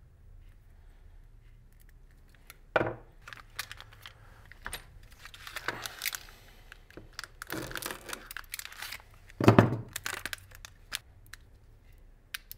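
Hands working at a wooden bench: rustling and crinkling of a plastic bag, scattered clicks of small metal terminals and hand tools, and one louder knock of a tool set down on the bench about three-quarters of the way through.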